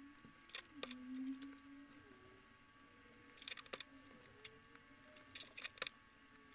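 Adhesive tape being pulled and pressed onto the corners of stacked paper sheets, with paper handling: a few light clicks and short crackly bursts, and a brief low hum about a second in.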